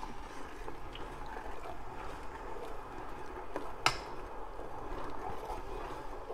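A thin stream of white vinegar trickling from a glass measuring cup into hot milk in a stainless steel pot, the acid added little by little to curdle the milk. A single sharp click about four seconds in.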